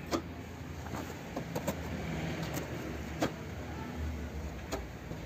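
Plastic spreader working body filler across a car's sanded steel fender, with a scattering of sharp clicks as the blade meets the panel, over a steady low rumble.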